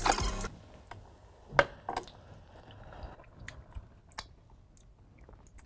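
Quiet tasting sounds: a few small clicks and taps from a spoon and mouth as the hot sauce is tasted, the sharpest about a second and a half and two seconds in. A louder sound cuts off about half a second in.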